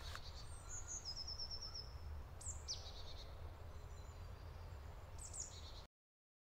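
Small forest birds calling faintly over a low background rumble: a quick run of about six high, even notes near the start, a couple of falling calls in the middle and a few more chirps near the end, then the sound cuts off suddenly.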